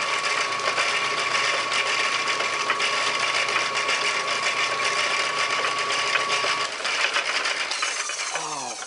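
Lathe spinning a lap inside a 3-inch steam engine cylinder bore, the lapping compound scraping the metal with a steady whine over the machine noise. Near the end the whine stops and the lathe spins down, its pitch falling.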